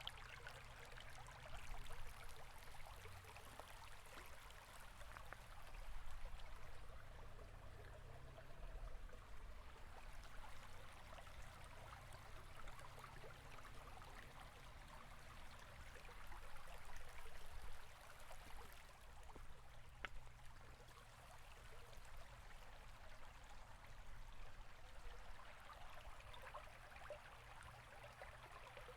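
River water flowing steadily, a soft, even rushing and babbling with a low rumble underneath.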